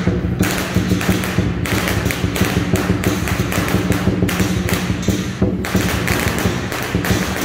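Chinese lion dance percussion: a big drum beating with repeated clashing cymbals, playing continuously in a driving rhythm to accompany the dancing lions.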